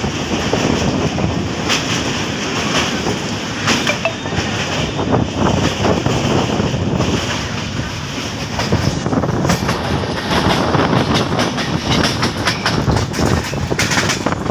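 Passenger train running at speed, heard from an open carriage window: a steady rumble of wheels on the rails with many irregular clicks and clacks, crossing a steel truss bridge at first.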